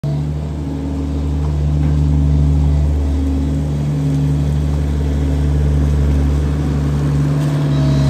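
2009 Avant M635 compact loader's diesel engine running steadily as the machine drives along, with an even low drone.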